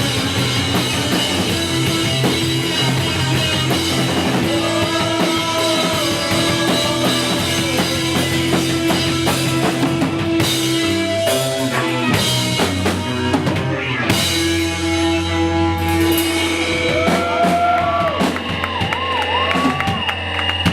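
Live rock band playing an instrumental passage: drum kit and bass underneath, with a lead line of sliding, wavering notes that come in about four seconds in and again near the end.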